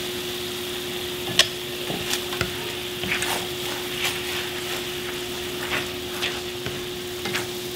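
Meatballs in sauce sizzling in a titanium-coated stainless steel frying pan as a spatula stirs them and scrapes the bottom, with short sharp scrapes and taps scattered through, the loudest about a second and a half in. A steady low hum runs underneath.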